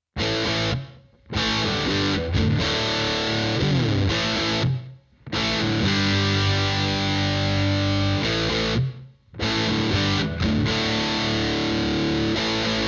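Distorted electric guitar played through a Valeton GP-200 multi-effects processor, demonstrating one of its new effects: riffs in phrases of a few seconds, each stopped abruptly by a short silence.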